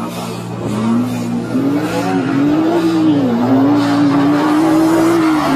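Nissan GT-R engine revving hard as the car drifts in circles on snow, its pitch held high and rising and dipping again and again.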